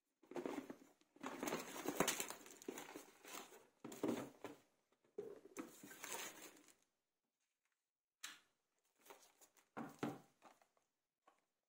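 Cardboard packaging of a drone box being handled: irregular rustling, scraping and crinkling for about the first seven seconds, then a few short taps and rustles.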